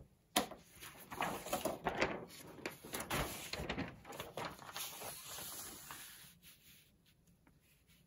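A paper brochure rustling and crackling as its pages are handled and turned over, a run of short crackles that dies away after about six seconds.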